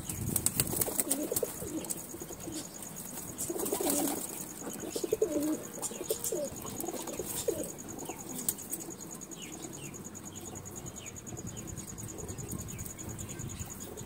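Domestic pigeons cooing, mostly in the first half, with occasional wing flaps.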